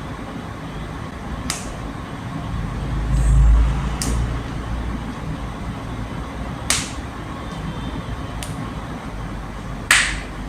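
Human joints popping: five sharp single cracks a couple of seconds apart, the last one the loudest. A low rumble, about three seconds in, comes from movement.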